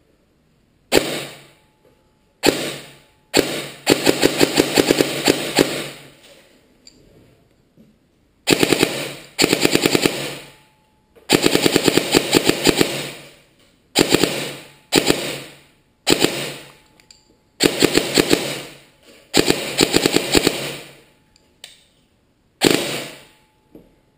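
Systema PTW airsoft rifle with a Siegetek Concept Cyclone DSG gearbox and an open-cage motor, firing two single shots and then full-auto bursts of varying length, some over two seconds long, others short, with brief pauses between.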